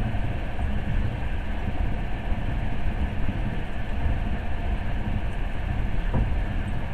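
Passenger train running, a steady low rumble of wheels and carriage heard from inside the car.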